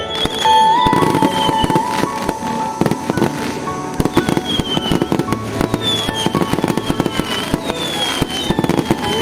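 Fireworks display: a dense, continuous run of bangs and crackles, with several high whistles falling in pitch, over music.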